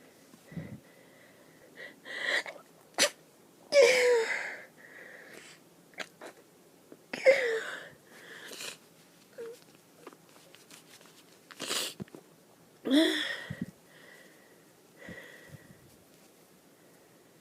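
A person sneezing over and over in an allergy fit, not held off by antihistamines. The loudest sneezes come about four, seven and thirteen seconds in, with quieter sharp bursts between.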